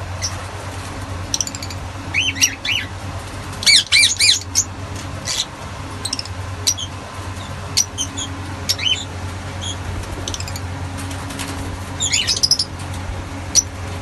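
Fischer's lovebirds giving short, sharp, high chirping calls in scattered bursts, the busiest flurry about four seconds in and another near the end, over a steady low hum.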